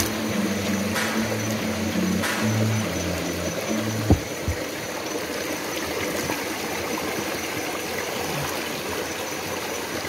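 Shallow stream trickling over stones, with a hand moving through the water. Low background music notes run under it until about four seconds in, and there is one knock at about four seconds.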